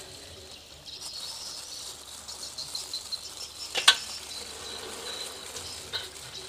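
Steady high-pitched chirping of insects in the background, with one sharp click a little under four seconds in.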